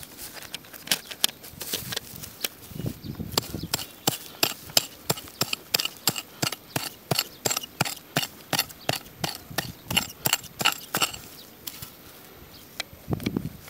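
Dry grass and stems crackling and snapping in a quick run of sharp clicks, several a second, as the ground cover is swept through, with a couple of dull low thumps.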